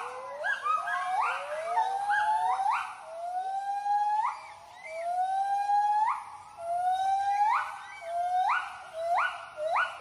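White-handed gibbons' territorial song: a series of hooting notes, about one a second, each sliding slowly up and ending in a sharp upward sweep. Two voices overlap at first, and the song breaks into a fast trill of short notes right at the end.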